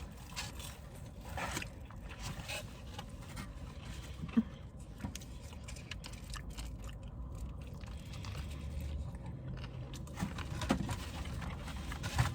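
Close-up chewing and mouth sounds of someone eating, with scattered soft clicks and small knocks; one sharper knock about four seconds in.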